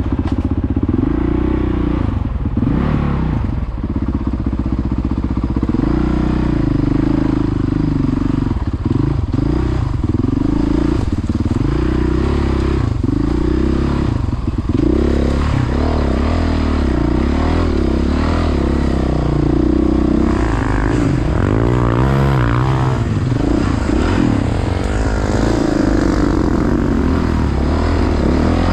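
Motocross motorcycle engine noise, revving again and again, with the pitch rising and falling throughout.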